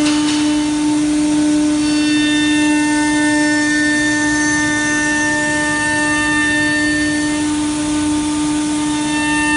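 A PADE 6-axis CNC router's spindle running with a steady whine while its end mill cuts into a solid-wood chair blank, with the hissing noise of the cut underneath.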